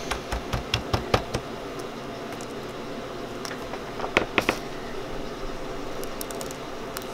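Steady hum of candy-kitchen machinery, with a quick run of light clicks and knocks in the first second and a half and three more about four seconds in, from truffles being hand-dipped in chocolate and set down on a paper-covered tray.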